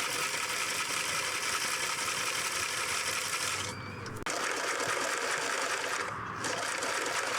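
Electric sewing machine stitching in fast continuous runs, stopping briefly about four seconds in and easing off again about six seconds in.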